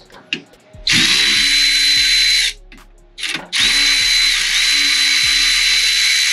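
Impact wrench run in two bursts, the first about a second in and the second starting near the middle and lasting longer: a dense high hiss with a steady high whine, breaking loose a 15 mm suspension bolt at the steering knuckle.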